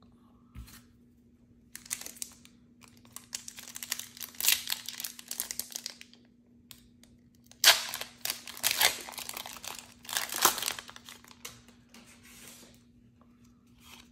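Foil Pokémon booster-pack wrapper crinkled and torn open by hand, in two long spells of crinkling and tearing starting about two and eight seconds in.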